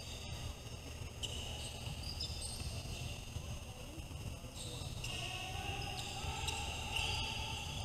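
Basketball shoes squeaking on a hardwood gym court in short, high-pitched chirps, more of them in the second half, over the low hum of the gym.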